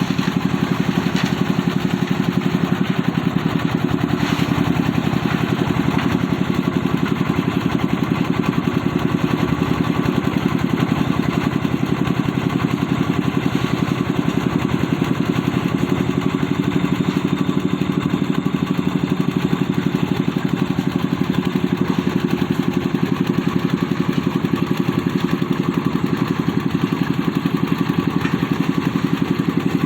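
An engine running at a steady speed with a rapid, even beat and no change in pitch or level.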